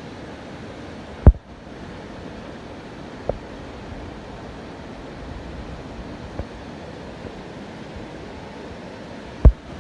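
Wind blowing across the microphone: a steady rushing noise broken by two sharp, loud low thumps, about a second in and near the end, with a couple of fainter bumps between.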